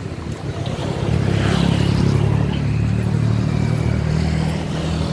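A motor vehicle's engine running close by, a steady low note that comes up about a second in and holds.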